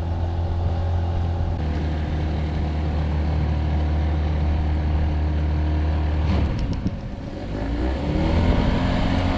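Boat outboard motor running steadily. Near the end it sags with a few clicks as it is shifted into gear, then picks back up, rising in pitch and settling at a higher steady speed.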